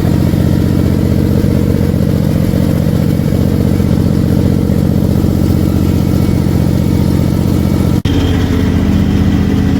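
The propane engine of a Lavina concrete grinder runs steadily, fed from a tank overfilled past the 75% mark. There is a momentary break about eight seconds in, after which it runs on with a slightly different tone.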